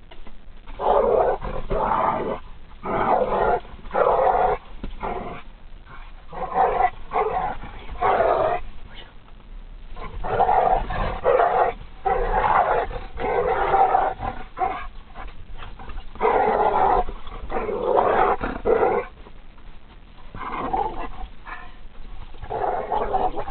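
A pit bull and a dachshund growling as they fight in play, in repeated loud bouts of about a second with short pauses between.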